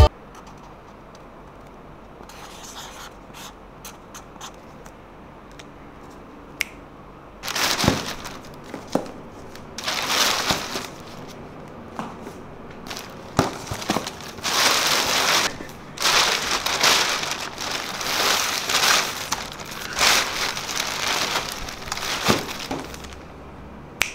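A thin plastic bag rustling and crinkling in repeated bursts as cardboard boxes are handled inside it. After a few quiet seconds with faint ticks, the bursts start about seven seconds in and continue until shortly before the end.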